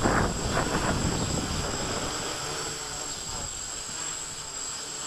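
Wind gusting on the microphone for about the first second, then the steady hum of a Q450 quadcopter's motors and propellers as it hovers.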